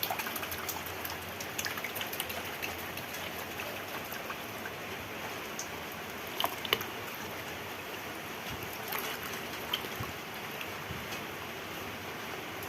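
Water trickling and splashing lightly in a bucket as an otter plays in it, with small splashes, two close together about halfway through.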